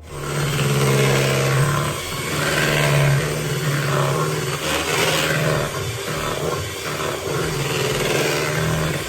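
Electric mixer motor running, beating the cake batter; it starts abruptly and runs steadily with a slightly wavering hum.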